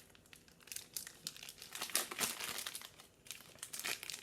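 Plastic wrapping crinkling and rustling in irregular bursts as it is handled.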